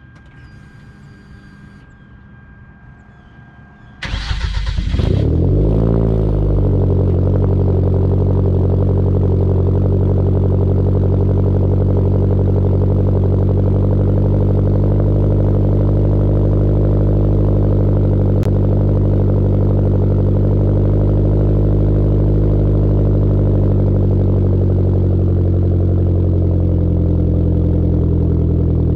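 The 2013 Hyundai Genesis Coupe 2.0T's turbocharged four-cylinder, with a big turbo and single-exit exhaust, cranks and fires about four seconds in. The revs flare up and drop back within a couple of seconds, then it settles into a steady cold-start idle that eases slightly lower near the end.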